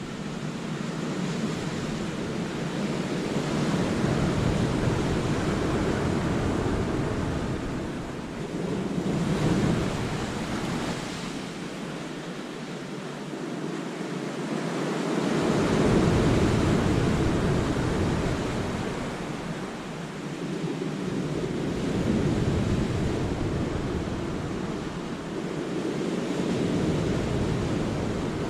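Sea waves breaking on the rocks of a cove and washing back, a steady rush of surf that swells and eases about every five to six seconds.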